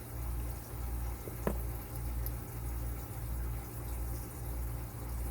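A low hum that swells and dips about one and a half times a second, with a single light click about a second and a half in.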